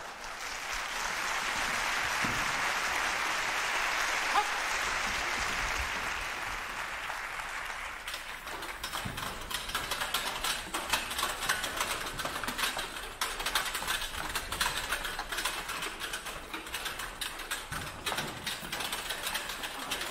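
Audience applause swells for several seconds. About eight seconds in it gives way to dense, irregular clicking and clattering.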